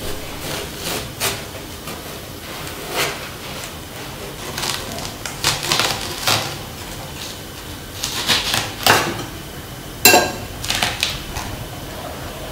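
Large kitchen knife cracking and crunching through a whole watermelon's rind and flesh on a wooden chopping board, in a series of short crunches. A sharp knock about ten seconds in, when the halves come apart onto the board.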